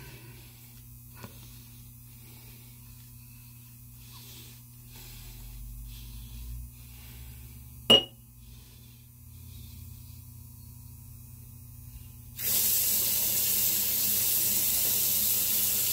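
Faint, short scraping strokes of a single-edge safety razor through lathered stubble, with one sharp click about halfway through. Then, for the last few seconds, a bathroom sink tap runs loud and steady.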